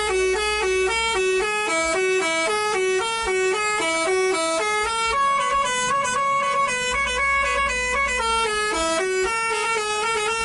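Basuri 'telolet' musical bus horn playing a tune: a continuous run of short stepped horn notes, about four a second, with longer held higher notes around the middle. A low rumble sits underneath at times.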